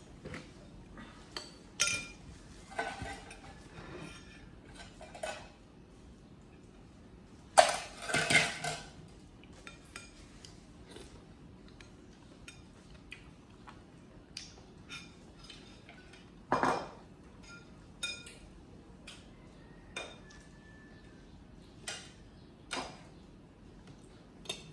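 A spoon clinking and scraping against a bowl of porridge during feeding, in scattered short clinks. There is a louder clatter about eight seconds in and another about sixteen seconds in.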